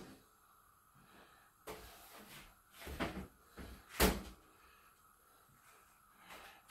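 A few knocks and clatters of kitchen things being handled, such as cupboard doors and containers, with the sharpest, loudest knock about four seconds in.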